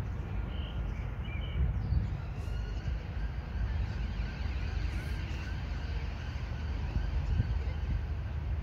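Outdoor ambience: a steady low rumble with faint bird chirps above it.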